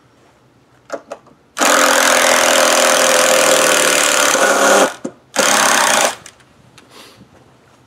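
Cordless driver running screws in a wooden 2x4 brace: a long run of about three seconds, then after a short pause a second run of under a second.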